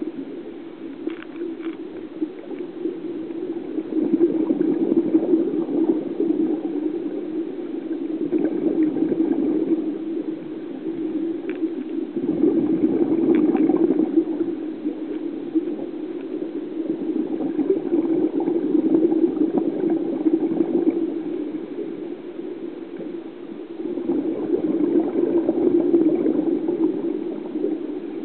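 Muffled, bubbling water noise heard through an underwater camera's waterproof housing, swelling and fading every few seconds, with a few faint clicks.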